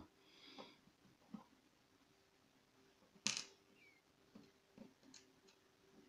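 Mostly near silence with a few faint small ticks and one sharp metallic click a little over three seconds in: a brass pin-tumbler lock cylinder being gutted by hand, its pins coming out.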